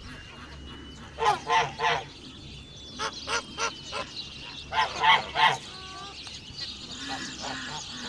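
Flock of domestic geese honking in short runs of two to four honks, the loudest run about five seconds in, with softer honks near the end.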